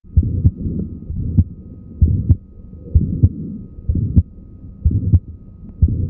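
Recorded heart sounds through a stethoscope, about one beat a second. In each beat a low first sound is followed by a sharp click: a mid-systolic click from mitral valve prolapse, as in Marfan syndrome. A faint steady high hum runs underneath.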